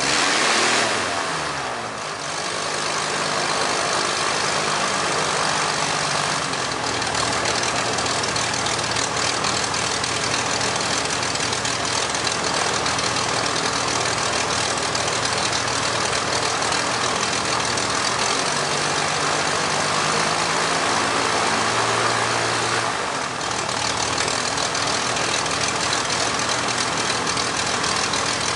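The Skybolt biplane's engine running steadily on a ground test, its speed changing briefly shortly after the start and again about four-fifths of the way through.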